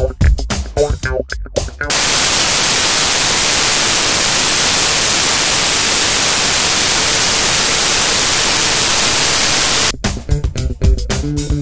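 Background music, cut off about two seconds in by loud, steady static hiss like a detuned TV, which lasts about eight seconds before the music comes back.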